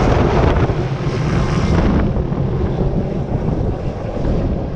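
Helicopter running close by, a dense rumbling roar of engine and rotor with wind buffeting the microphone, easing slightly toward the end.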